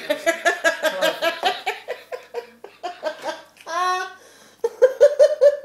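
Hearty laughter in rapid ha-ha-ha runs, with a high squealing laugh about four seconds in and another burst of laughing near the end.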